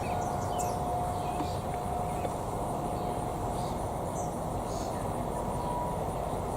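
Distant Federal Signal 2001 tornado sirens sounding a steady tone: a lower-pitched one fades out after about two seconds, and a fainter, higher-pitched one comes in near the end. Under them is a steady rushing background with faint insect chirping.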